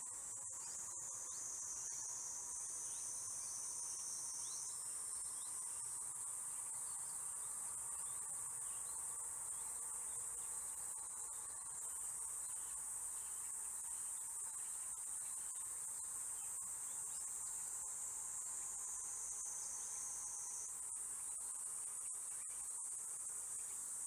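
Steady, high-pitched insect chorus: a dense continuous buzz that does not let up.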